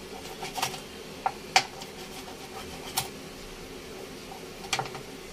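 Kitchen knife cutting and scraping small mudskippers being cleaned, giving a few sharp clicks and taps, the loudest about a second and a half in, over a steady fan hum. The knife is blunt and does not cut cleanly.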